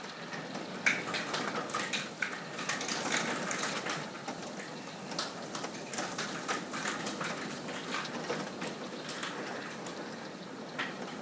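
Rain falling, a steady hiss with many separate drops splatting close by at an irregular pace.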